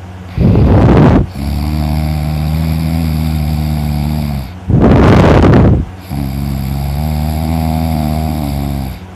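A person snoring heavily: two loud, harsh snores about four seconds apart, each followed by a longer, steadier, lower droning breath.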